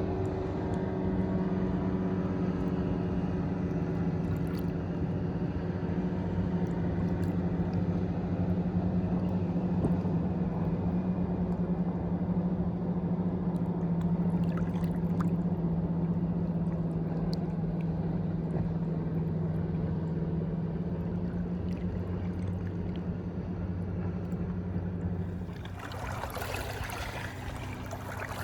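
A motor's steady hum, its pitch sinking very slowly, over a rushing water-like noise. About 25 seconds in the hum stops abruptly and a brighter rush of water takes over.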